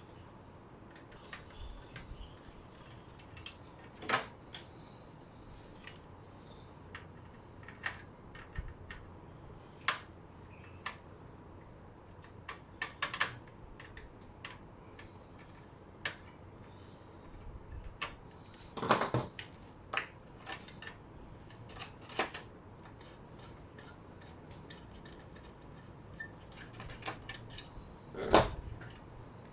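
Irregular small clicks and taps of a screwdriver and metal and plastic parts being handled as the circuit board's screws are undone and the board is lifted out of an LCD monitor. There is a louder clatter about two-thirds of the way in and another near the end.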